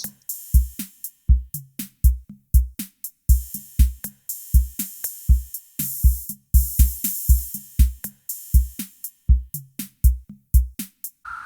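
Background music: a drum-machine beat of kick drum, snare and hi-hats at a steady tempo.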